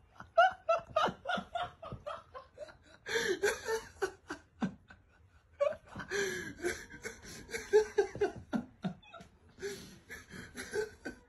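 A person laughing hard in quick repeated bursts of giggles and snickers, breaking into longer, higher, breathless laughs about three seconds in and again about six seconds in.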